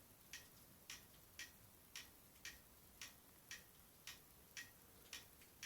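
Faint, regular ticking, about two ticks a second, in a quiet room.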